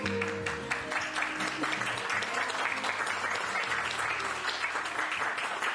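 Wedding guests applauding and clapping as the last notes of the father-daughter dance song fade out in the first second.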